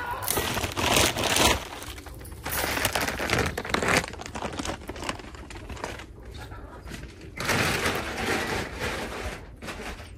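Chicken feed grain being handled and tossed into a run in rustling, crackling bursts: one at the start, one about three seconds in and one near eight seconds.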